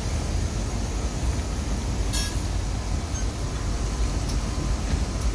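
Outdoor traffic noise as driving-school sedans drive past, over a steady low rumble. A short high click about two seconds in.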